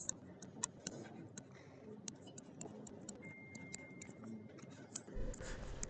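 Faint, irregular ticks and taps of a stylus on a tablet PC screen during handwriting.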